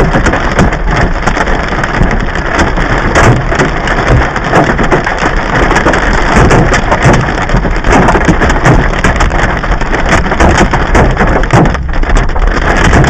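Hail pelting down hard: a loud, dense clatter of countless stones striking hard surfaces.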